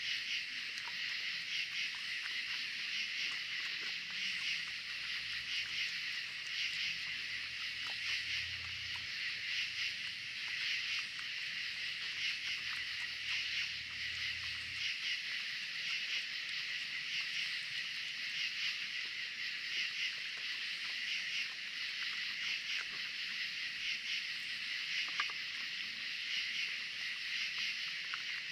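Steady high-pitched chorus of night insects trilling without a break, with faint scattered clicks of raccoons chewing and picking at food on a wooden table.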